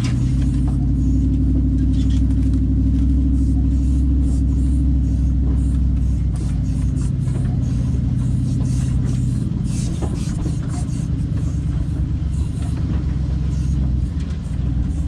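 Steady low rumble of a Jayco Expanda Outback caravan being towed over a sandy track, picked up from underneath the chassis by its JTECH independent suspension and tyres, with a few small knocks through it.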